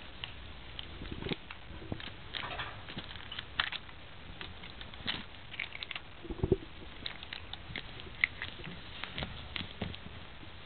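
Cat gnawing and pawing at a thin stick toy on a towel: irregular small clicks, crackles and rustles, with a low thud about six and a half seconds in.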